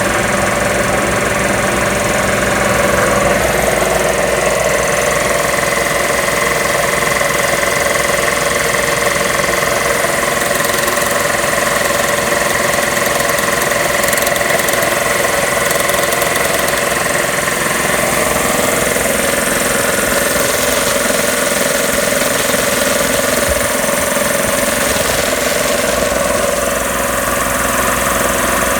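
Magna Force two-stage piston air compressor running steadily, its pump knocking and vibrating as it works.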